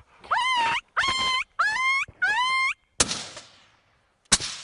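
Four short, wavering yelps from a hunter calling in canines, each rising and then held high, followed by a rifle shot about three seconds in and a second shot near the end.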